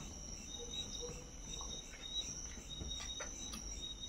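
Crickets trilling steadily at a high pitch, with a few faint clicks.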